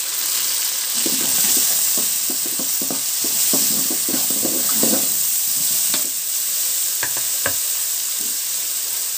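Shallots, garlic, green chillies and freshly added tomato pieces sizzling in hot oil in a wide kadai, stirred with a metal ladle that scrapes and knocks against the pan. A couple of sharper clinks come about seven seconds in.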